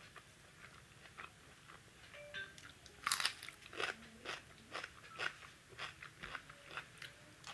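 A person chewing a mouthful of rice and curry close to the microphone: soft, wet, crunching mouth clicks come about twice a second, starting about three seconds in and loudest at the start of the run.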